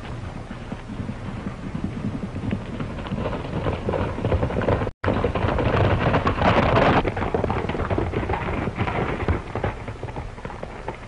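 Several horses galloping past on a dirt trail: a dense rumble of hoofbeats that swells to its loudest about two-thirds of the way through. The sound cuts out for a split second about five seconds in.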